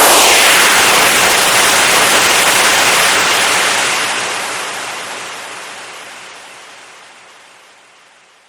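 A blast of compressed air released, hissing steadily for about three seconds and then dying away gradually.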